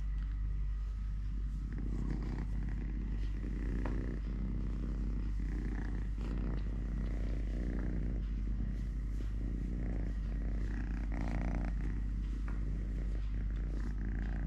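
Kitten purring steadily, close to the microphone.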